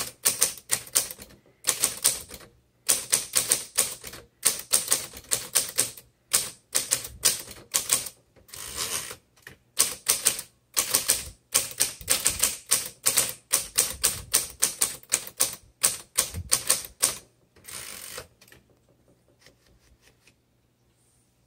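Smith Corona Electra 110 electric typewriter being typed on in quick runs of key strikes with short pauses between them, stopping near the end, over a steady low hum.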